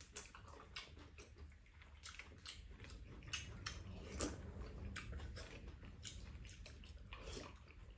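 Two people eating bibimbap and soup with metal spoons and chopsticks: quiet chewing and slurping, with scattered light clicks of utensils against the bowls.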